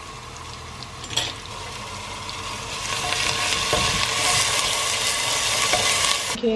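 Chopped onions and minced garlic sizzling in hot oil in an open pressure cooker, stirred with a wooden spoon. The sizzle starts about a second in, grows louder, and cuts off abruptly near the end.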